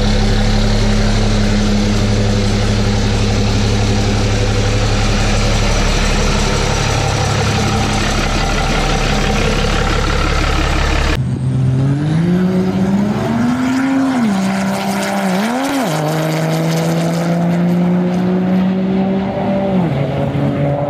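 6.7 Cummins diesel pickup engine running hard as a steady deep drone. About halfway it changes abruptly to engine notes that climb, dip twice, hold steady and drop near the end, with a faint high whine rising above them.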